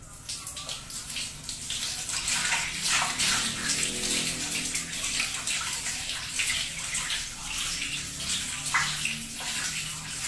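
Water splashing and running, as in a bathtub, with many small irregular splashes.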